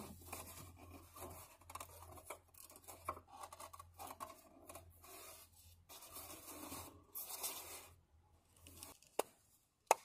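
Faint handling noise from a styrofoam cooler as a small fan is pressed into the hole cut in its foam wall: irregular rubbing and scraping against the foam over a low steady hum that stops about nine seconds in, then two sharp knocks near the end.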